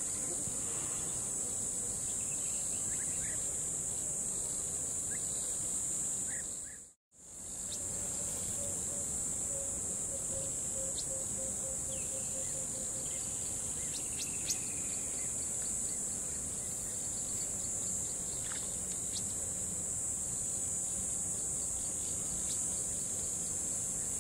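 A steady, high-pitched insect chorus with a few faint short chirps over it; it fades out briefly about seven seconds in and comes back. From about eight to twelve seconds in, a faint run of quick low pulses, about four a second, sounds under it.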